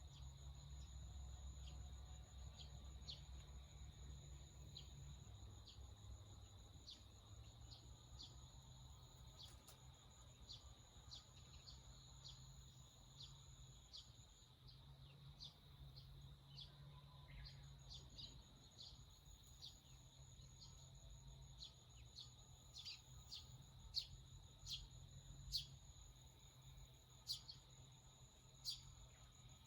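Small birds giving short, sharp chirps in a forest, scattered at first and coming more often and louder in the last third. Beneath them is a steady high insect drone that stops for a few seconds midway and then resumes.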